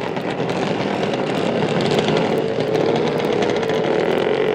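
A loud, engine-like running sound laid under the outro, with a tone that climbs slowly in pitch and a dense crackle over it.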